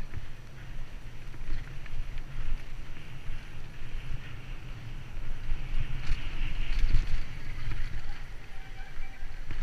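Wind buffeting a helmet-mounted camera's microphone as a mountain bike runs fast down a dirt singletrack, with tyre hiss on the dirt and occasional clicks and rattles from the bike. The hiss grows louder for a moment about six seconds in.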